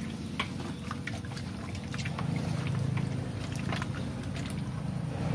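Wet squelching and short clicks of slippery eels being handled and turned over by hand in a metal pot, over a steady low rumble like a motor running.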